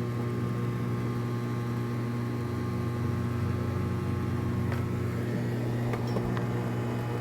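Steady low mechanical hum of a running motor, unchanging in pitch, with a few faint clicks in the second half.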